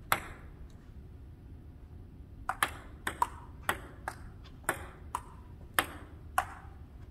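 Table tennis rally: the ball clicks sharply off paddles and the table. There is a single click at the start, then a pause, then a run of about ten clicks roughly half a second apart from about two and a half seconds in.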